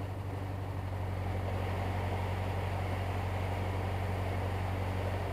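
Narrowboat's diesel engine running steadily under way, a low even drone.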